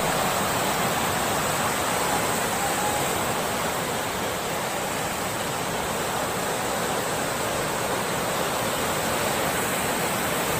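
Floodwater from heavy rain rushing fast across a tiled surface: a steady, even rushing noise with no change in strength.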